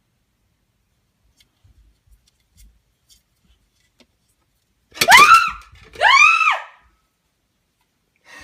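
Two loud, high-pitched squeals about five seconds in, each rising then falling in pitch, after near silence broken only by a few faint rustles.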